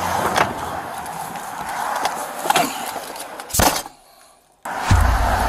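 Roadside traffic noise with a few clicks of a car door being opened, then a door slams shut about three and a half seconds in and the outside noise drops away to a muffled quiet inside the car. A low rumble starts suddenly near the end.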